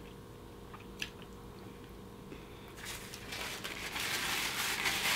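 A single small click about a second in, then, from about three seconds in, a soft continuous crinkling and crackling of a paper food wrapper being handled.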